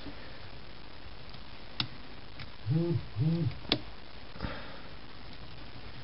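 A few sharp clicks from a small precision screwdriver working screws into a tablet's circuit board, with two short hums from a person in quick succession about halfway through, each rising then falling in pitch, over a steady background hiss.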